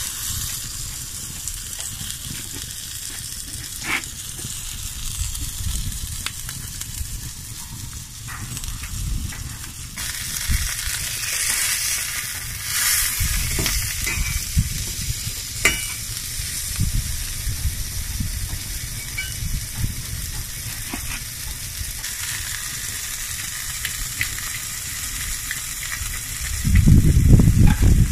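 Burger patty sizzling in a black iron frying pan over a wood fire: a steady frying hiss with a few sharp clicks of a metal spatula against the pan. A louder low rumble near the end.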